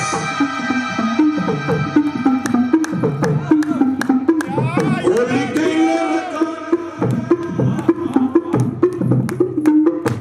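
Live devotional bhajan music: an electronic keyboard holds a sustained melody over a steady hand-drum beat. A sliding, wavering melodic line rises and falls in the middle.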